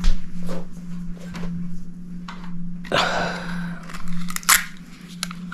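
Adhesive tape being handled and pulled: small clicks and rustles, with one short rasping pull of tape about three seconds in, over a steady low hum.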